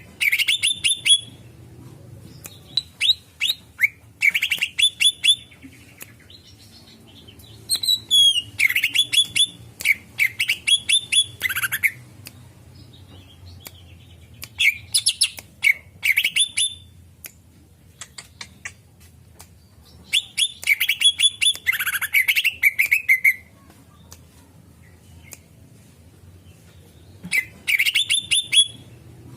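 Cucak ijo (greater green leafbird) calling in about six bouts of rapid, sharp chirps, with short pauses between the bouts.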